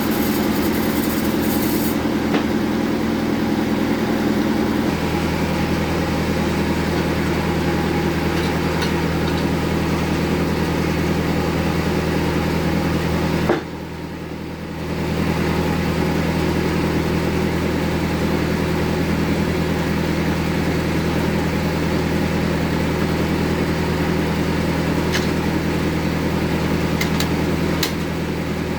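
Sawmill bandsaw running steadily with a low machine drone. The drone shifts in pitch about five seconds in and dips in level briefly about halfway.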